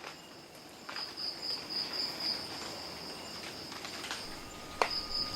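Night insects chirping in a steady, pulsing high-pitched trill, with a few sharp clicks, the clearest near the end.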